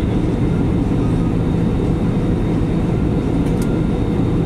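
Steady low rumble of an airliner's jet engines and rushing airflow, heard inside the cabin in flight.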